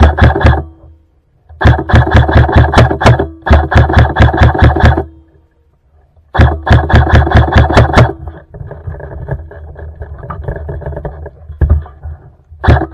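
Airsoft rifle firing on full auto in repeated bursts of a second or two each, a loud rapid mechanical rattle. A quieter, busier rattle runs for a few seconds after the fourth burst before a last burst starts near the end.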